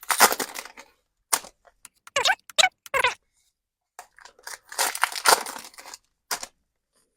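Foil booster pack wrapper being torn open and crinkled, in two bursts about four seconds apart.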